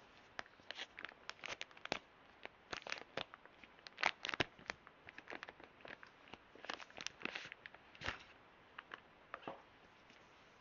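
Product packaging being unwrapped and handled close to the microphone: a run of short crinkling, tearing and crackling sounds, loudest about four seconds in and thinning out near the end.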